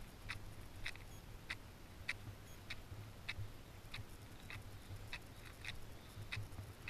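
Footsteps walking on grass, heard as faint, regular ticks at an even pace of about three every two seconds, over a steady low hum.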